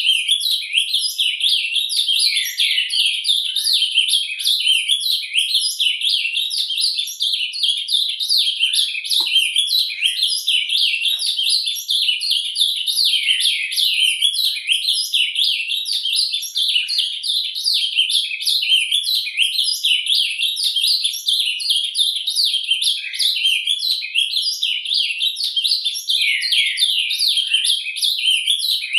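Ultramarine grosbeak (azulão) singing in surdina: a continuous, rapid, high-pitched twittering warble with no pauses between phrases.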